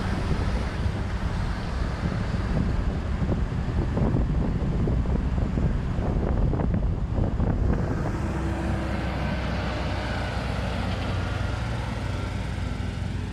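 Truck engine running steadily under way, with a jumble of knocks and rattles through the middle few seconds.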